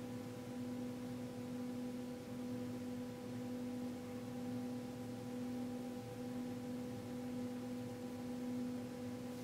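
A steady hum of a few held tones, one low and strongest with fainter higher ones above it, unchanging throughout. The footsteps the group hears at this moment are not on the recording.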